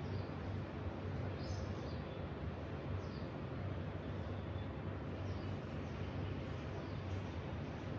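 Outdoor morning ambience: a steady low rumble and hiss, with small birds chirping briefly every second or two.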